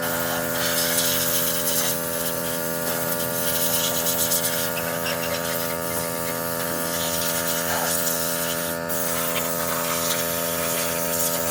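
A motor running at a constant speed, a steady hum held at one pitch with a harsh, rasping noise over it.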